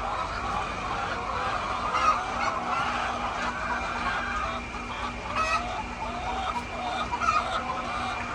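A large flock of hens clucking and calling, many overlapping voices chattering continuously.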